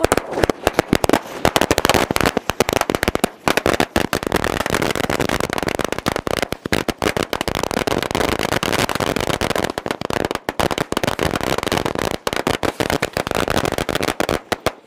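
A 1,000-cracker firecracker string (ladi) going off on the ground: rapid, unbroken cracking that cuts off abruptly near the end.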